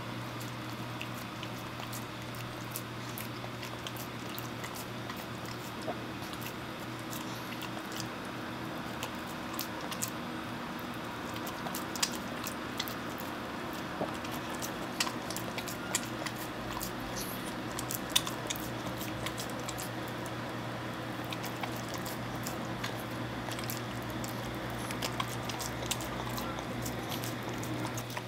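A pug chewing and licking at a banana held in a hand: irregular wet smacks and clicks of its mouth, more frequent in the second half, over a steady low hum.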